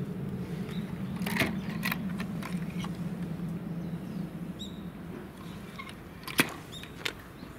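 Hinged wooden flaps on a display board being handled, giving several sharp wooden clacks, the loudest about six seconds in. Under them runs a low, steady machine hum that fades out about five seconds in.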